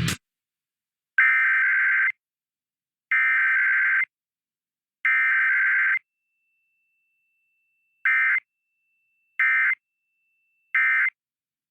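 Emergency Alert System SAME data bursts, a two-tone warbling screech. The three header bursts of about a second each are followed by three short end-of-message bursts. The header going straight to end-of-message with no attention tone or voice message is the form of a Required Weekly Test.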